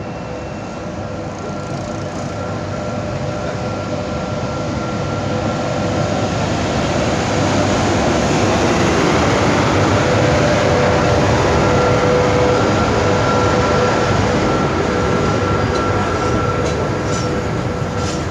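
VL80K twin-section electric locomotive passing close with a loaded coal freight train, its running noise building to loudest about halfway through as it goes by, with a steady whine throughout. Near the end the coal wagons roll past on the rails.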